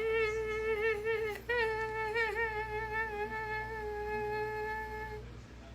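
A woman's voice humming two long, slightly wavering held notes, the second fading out about five seconds in.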